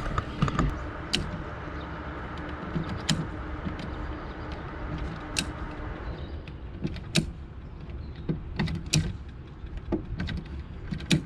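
Telescoping aluminium pole of a solar panel mount being worked up and down by hand, giving sharp metallic clicks and knocks about every two seconds. A steady hiss lies under the first half and drops away about six seconds in.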